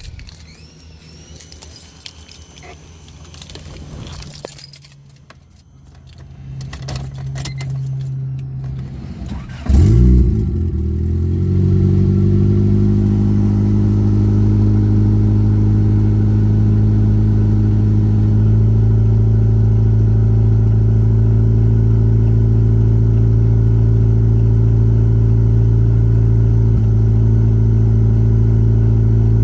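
Keys jangling, then about ten seconds in a car engine starts suddenly and settles into a steady idle.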